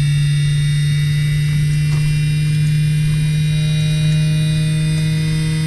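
Steady electrical hum with several faint, steady higher whines above it in a light aircraft's cockpit, the engine not yet started.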